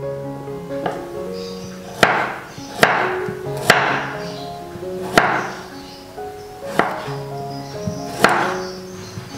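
Chef's knife slicing garlic cloves on a wooden cutting board, each cut ending in a sharp knock of the blade on the board: about six cuts, starting about two seconds in, unevenly spaced. Background music plays throughout.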